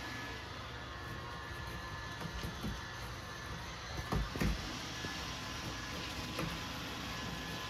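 Two soft low thuds close together about four seconds in, over a steady faint room hum.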